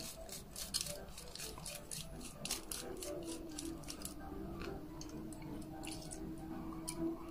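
Quick, light clicks and ticks of a small screwdriver and tiny screws being handled while taking apart a Parrot ANAFI drone, several a second at first and sparser later. A faint steady hum runs underneath from about three seconds in.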